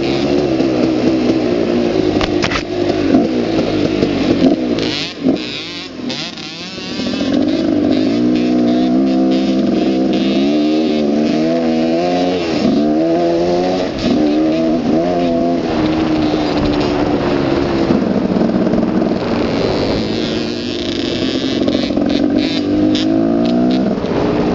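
Dirt bike engine running under changing throttle, its pitch rising and falling as it rides, easing off for a moment about five seconds in, with scattered knocks from the bumpy ride.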